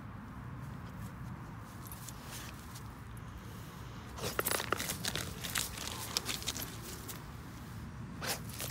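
Dog digging and nosing at a mouse hole in dry grass and leaf litter: crackling rustles and scratches of paw and snout in the litter, which start about four seconds in after a quieter stretch.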